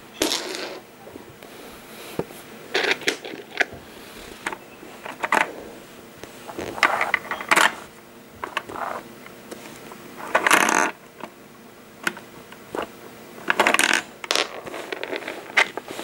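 Home-built LEGO candy machine worked by hand: its plastic bricks and slider parts click and rattle in short bursts every second or two, with a longer rattle about ten seconds in and another near the end.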